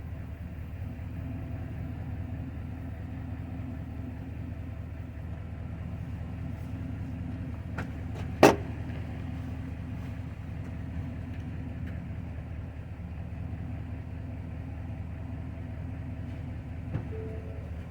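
Truck engine idling steadily, with one sharp knock about halfway through and a lighter one near the end.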